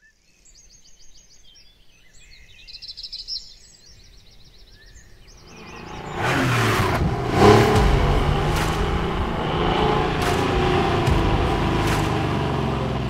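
Birds chirping, then about six seconds in a car engine starts up and keeps running loud, with a brief rev.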